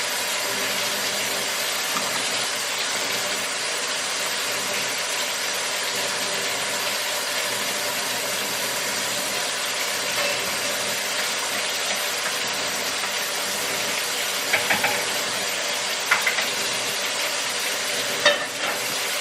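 Food sizzling in a hot pan, a steady hiss, with a few light clicks near the end.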